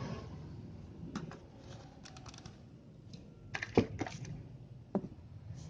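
Irregular key clicks and taps on a Logitech MK220 wireless keyboard as it is typed on, with a louder knock a little before four seconds in.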